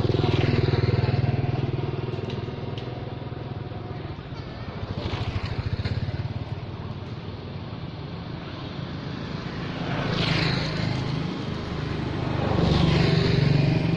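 Motor vehicles, motorbike-like, passing one after another: a low engine hum that swells and fades four times as each one goes by.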